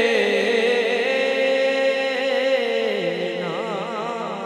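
A man sings an Urdu naat into a microphone, drawing out a long vowel without words. The held note steps down in pitch twice and then breaks into quick, wavering melismatic ornaments near the end.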